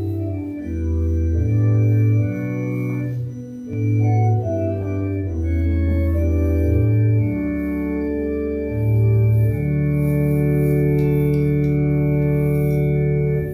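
Organ music: slow sustained chords over a stepping bass line, settling on one long held chord for the last few seconds.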